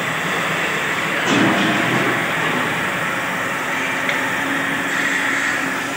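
Belt-driven wood lathe running steadily on its electric motor, spinning a large hollow wooden vessel, with a brief louder patch about a second in.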